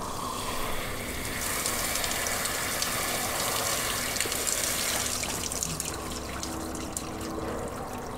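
Outdoor shower head running, its spray pouring over a man's head and shoulders, then tailing off near the end as the water stops.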